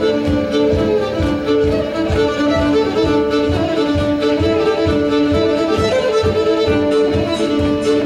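Violin playing a fast Irish fiddle tune live, with other instruments keeping a steady driving beat underneath.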